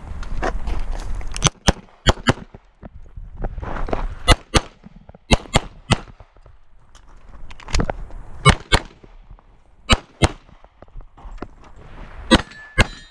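Beretta 92 9mm pistol fired in quick double taps: sharp shots in close pairs, a pair every second or two, about eight pairs in all.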